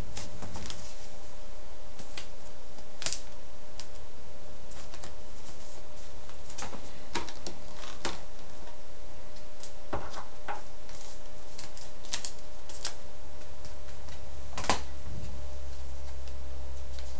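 Trading cards, rigid plastic card protectors and foil pack wrappers being handled on a table: scattered light clicks and taps, over a steady low hum that gets louder near the end.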